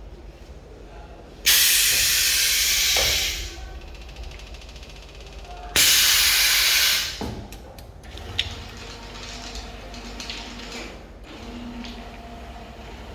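Two loud bursts of hissing air, each starting suddenly and lasting one to two seconds, about four seconds apart, from a blind-cutting machine, followed by a few light clicks and knocks.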